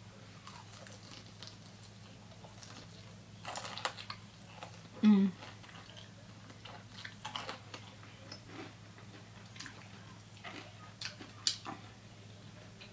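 Close-up mouth sounds of biting and chewing breaded fried chicken tenders: irregular short crunchy, wet clicks. There is one louder mouth sound about five seconds in, over a steady low hum.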